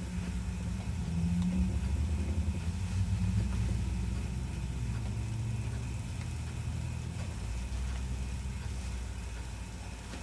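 Treadled spinning wheel turning steadily, set on its smallest, fastest whorl, giving a low uneven rumble with a few faint clicks.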